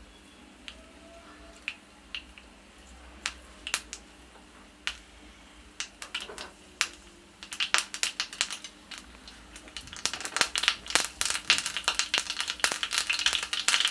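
Mustard seeds popping in hot oil in a small pan: a few scattered pops at first, then faster and denser pops from about halfway through, building into a steady crackle near the end.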